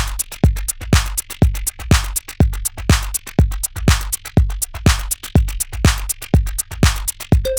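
Electronic dance music with a steady drum-machine beat: a heavy kick drum about twice a second with sharp hi-hat ticks in between.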